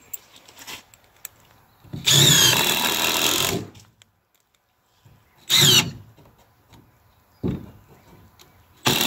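Cordless drill driving screws into 2x4 lumber: a run of about a second and a half about two seconds in, a short burst around five and a half seconds, and another run starting just before the end.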